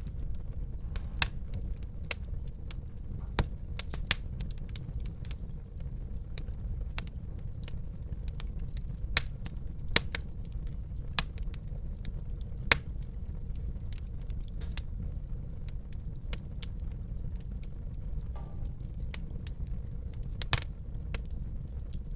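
Wood fire burning in a fireplace: a steady low rumble of the flames with irregular sharp crackles and pops, a few of them louder.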